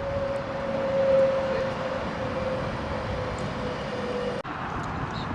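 A train passing through the station without stopping: a steady rushing noise with a whine that slowly falls in pitch. The sound breaks off abruptly about four and a half seconds in.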